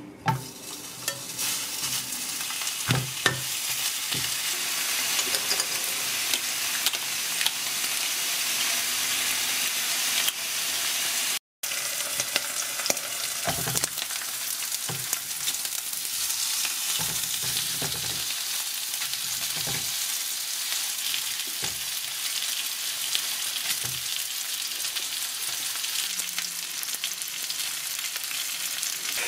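Pork belly slices sizzling as they fry in a nonstick frying pan, the sizzle starting as the meat goes in and building over the first couple of seconds. Occasional light knocks against the pan sound through it.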